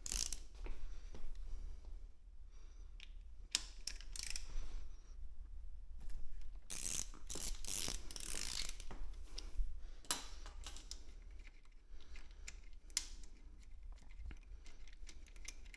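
Hand tools clicking and scraping as a 17 mm nut is loosened and taken off a motorcycle's engine-mount bolt. The clicks are irregular, with a louder stretch of scraping about halfway through.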